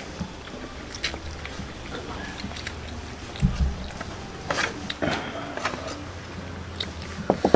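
Two people eating grilled fish and rice with their hands: chewing and mouth sounds with small scattered clicks, and one dull thump about three and a half seconds in.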